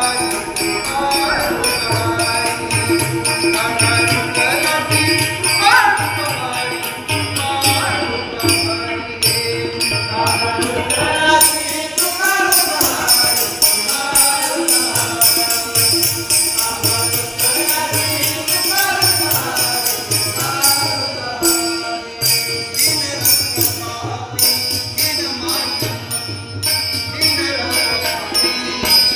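Devotional-style group singing with harmonium, tabla and small hand cymbals keeping a steady beat. The voices slide up and down over the harmonium's held notes, while the tabla and the cymbals play a continuous rhythm.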